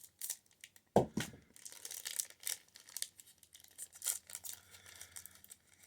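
A baseball card pack's wrapper being torn open and crinkled by hand, a run of short crackles. A single thump about a second in is the loudest sound.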